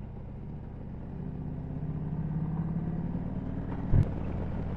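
2013 Harley-Davidson Road Glide Ultra's V-twin engine under way, growing louder in the first half as the throttle opens. About four seconds in there is a single short thump.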